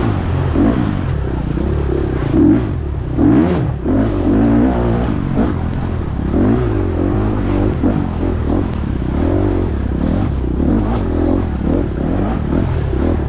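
Husqvarna FX 350 dirt bike's single-cylinder four-stroke engine revving up and down over and over under race throttle, with a few sharp knocks along the way.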